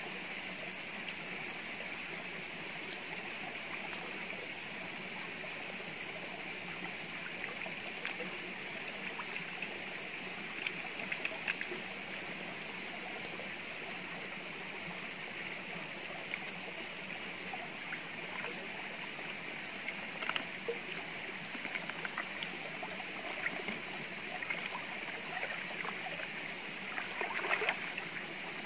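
Shallow stream running over rocks with a steady trickling rush. Short splashes and knocks come here and there as meat is cut and rinsed in the water, with a cluster of splashing near the end.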